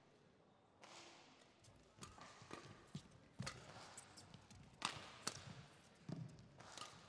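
Badminton rally: rackets striking a shuttlecock in a string of sharp hits every half second or so, the two loudest about five seconds in, half a second apart.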